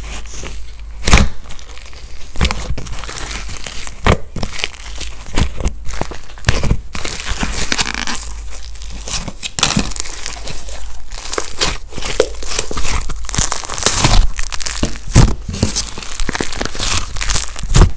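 Hands squishing, pressing and pulling thick blue slime, giving dense, irregular crackling and popping with soft tearing sounds as it stretches.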